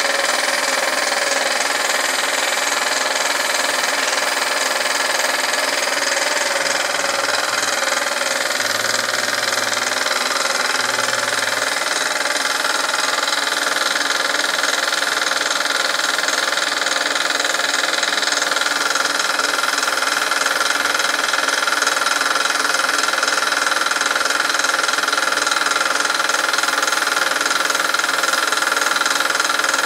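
Small air compressor running steadily, with the hiss of a gravity-feed spray gun spraying paint.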